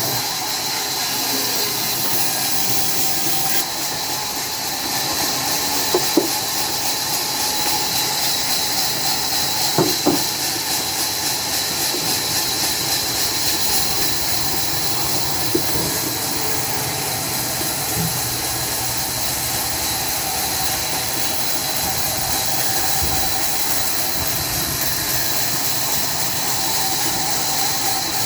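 Sawmill machinery running steadily with a loud, even hiss, with a few short knocks of wood or metal now and then.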